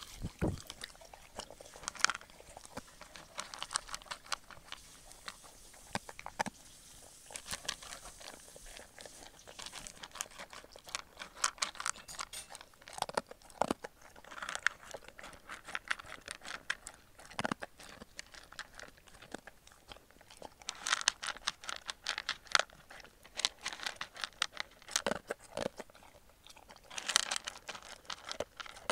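Akita dog eating from a plastic bowl: bursts of crunching and chewing with sharp clicks, coming every few seconds with short pauses in between.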